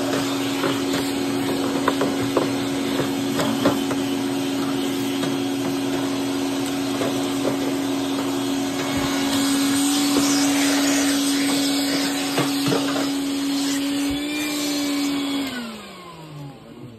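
Wet/dry shop vacuum running steadily, with scattered clicks and knocks as it picks up dust and debris from a dryer's front panel. About 15 seconds in it is switched off, and its motor whine falls in pitch as it spins down.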